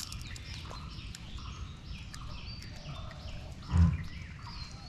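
Small birds chirping and twittering throughout, with one short, loud, low grunt-like sound near the end.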